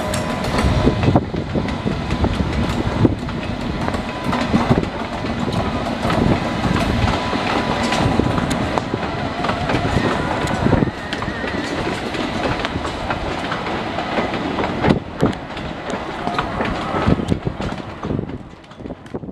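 Passenger train hauled by a WAP-7 electric locomotive rolling past, its wheels clattering over rail joints and points as the coaches go by. The sound fades away near the end.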